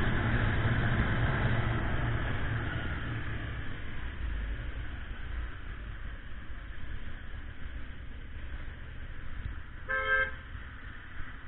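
Motorcycle engine and wind rush fading as the bike slows to a stop in traffic, then one short car-horn toot about ten seconds in.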